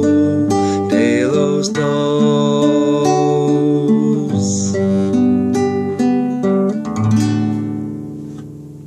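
Nylon-string classical guitar played as the song's closing bars: a run of picked chord notes, then a final chord about seven seconds in that rings out and fades.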